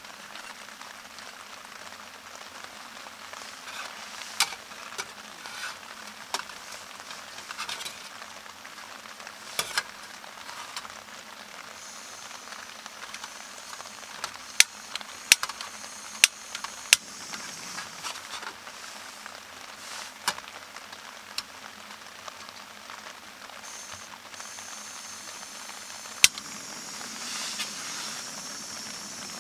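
Steady rain patter with light handling knocks. A few sharp clicks in the middle and one near the end come from the Jetboil Flash stove's push-button igniter. A hiss of gas grows stronger over the last few seconds as the burner runs.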